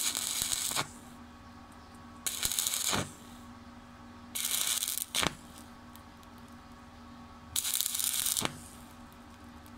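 Stick (SMAW) welding arc crackling in four short bursts, each under a second and a couple of seconds apart, as the electrode is struck and broken off again and again to fill a hole in steel plate a little at a time.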